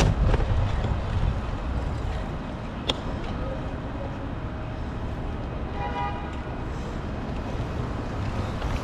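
Steady low rumble of street traffic and road noise heard from a moving bicycle, with a sharp click about three seconds in and a brief faint tone around six seconds.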